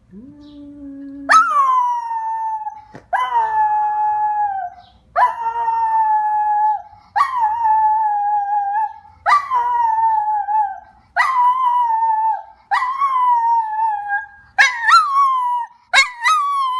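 Pet dog howling: a low rising note at first, then a run of about eight long howls roughly every two seconds, each starting high and sliding slightly down. The last few howls are shorter and come closer together.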